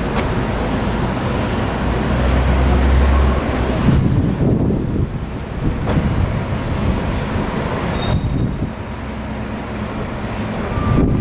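Wind buffeting the microphone over a loud, steady rumble of city traffic, with a heavier low gust about two seconds in. A steady high hiss runs underneath and drops out about eight seconds in.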